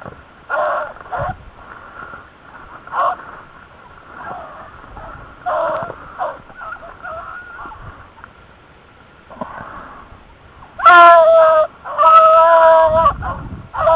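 Beagles baying, the hounds giving tongue as they run a rabbit's scent. Scattered yelps come first, some faint. Near the end come three loud, drawn-out bays.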